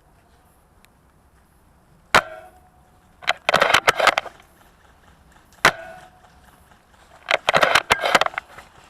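VSR-10 spring bolt-action airsoft sniper rifle firing twice, about three and a half seconds apart. Each shot is a sharp crack with a short ringing twang, and about a second later comes a quick rattle of clicks as the bolt is worked to re-cock the spring.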